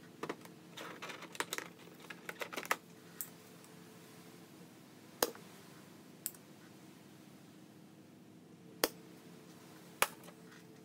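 Light clicks and taps of a soldering iron tip and solder wire against the LCD connector pins of an instrument-cluster circuit board during re-soldering. A quick flurry of taps comes in the first three seconds, then single sharp clicks a second or more apart, over a faint steady hum.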